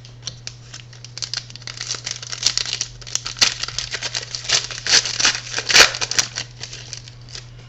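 Football trading cards being handled and flipped through by hand: an irregular run of quick clicks and papery rustles as cards slide over one another.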